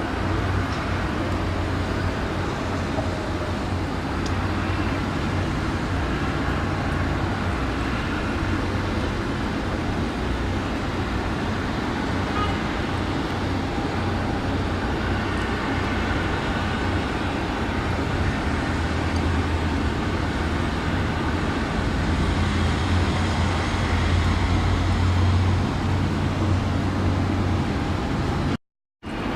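Steady engine rumble with a low hum that swells a little about three-quarters of the way through, then cuts out for a moment near the end.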